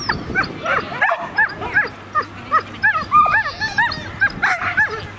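A dog barking excitedly in rapid, high-pitched yips, about three a second, without a break.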